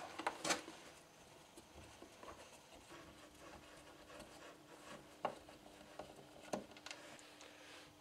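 Faint handling sounds of a screwdriver turning Torx screws out of a plastic vacuum cleaner housing: quiet rubbing with a few sharp clicks, one about half a second in and two near the end.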